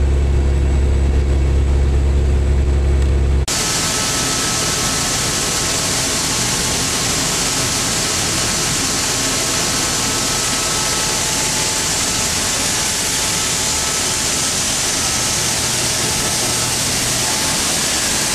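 A semi truck's engine drones in a low, steady tone heard from inside the cab. About three and a half seconds in, it cuts abruptly to a loud, steady rushing noise from the grain-handling equipment at the farm.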